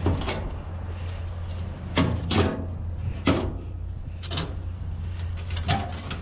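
Hand-tool work on scrap: about half a dozen sharp knocks and clanks as small fittings are worked loose, the loudest around two to three seconds in, over a steady low hum.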